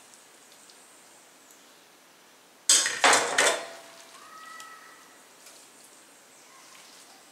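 A kitchen knife is put down with a clatter of several sharp knocks, about three seconds in, on the kitchen counter. A brief, faint ringing of glass or metal follows.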